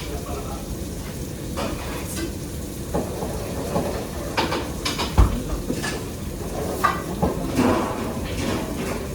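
Kitchen clatter: scattered knocks and clinks of pans, utensils and dishes over a steady low rumble, with the loudest knock about five seconds in.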